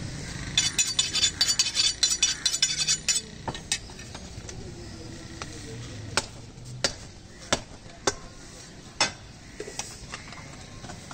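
A butcher's steel blade clinks rapidly against metal for a couple of seconds, then strikes five sharp, separate chops a little under a second apart.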